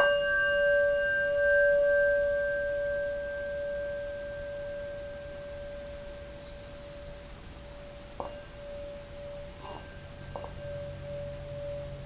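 Singing bowl struck once with a mallet, ringing one clear steady tone with fainter higher overtones; the overtones fade over a few seconds while the main tone rings on. There are a couple of light touches about eight and ten seconds in, and a low hum joins near the end.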